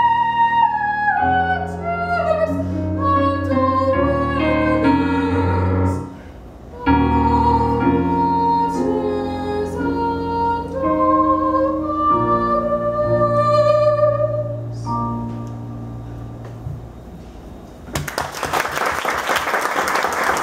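Female soprano singing a classical art song with vibrato over piano accompaniment on a digital keyboard, with a short pause about six seconds in. The last note and piano chord die away, and applause breaks out about three seconds before the end.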